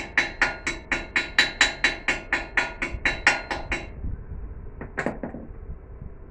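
A hammer striking metal in a fast, even run of ringing blows, about four a second, stopping about four seconds in; one more blow follows about a second later.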